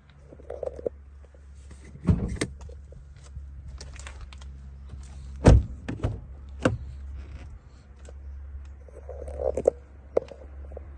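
A series of clicks and knocks from a car being handled, the heaviest thump about five and a half seconds in, over a steady low hum.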